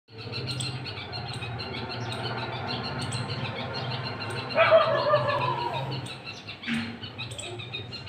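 Small birds chirping in short, repeated high notes, with a louder, lower call about halfway through that falls slightly in pitch, and a brief harsh note near the end.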